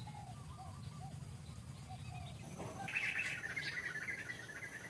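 Birds chirping: short, separate calls at first, then a fast, dense twittering from about halfway on, loudest near the three-second mark, over a low steady rumble.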